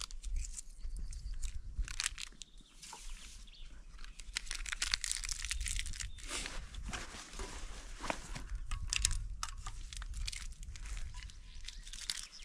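Plastic food packaging crinkling and rustling as it is handled, with many small irregular clicks and crackles.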